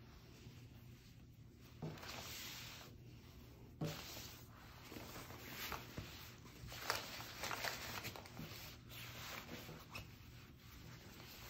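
Rustling and rubbing of a disposable cover being pulled by hand over a padded mat, in faint uneven surges, with a couple of light knocks in the first few seconds.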